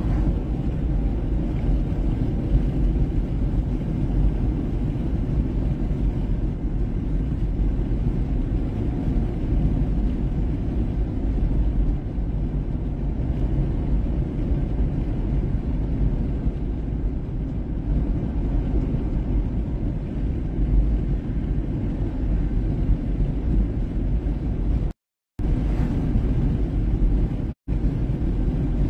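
Steady low rumble of a car driving, heard from inside the cabin. The sound cuts out twice near the end, once for about half a second and once very briefly.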